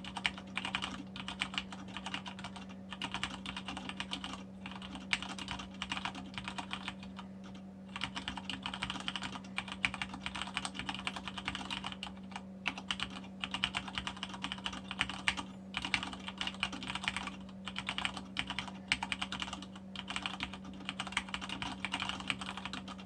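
Fast touch typing on a Deck 82 mechanical keyboard with Cherry MX Black linear switches: a dense, continuous stream of keystrokes broken by brief pauses every few seconds.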